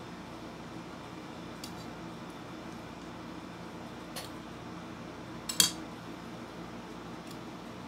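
Metal spoon clinking against a ceramic soup bowl a few times, sharpest and loudest a little past halfway, over a steady low background hum.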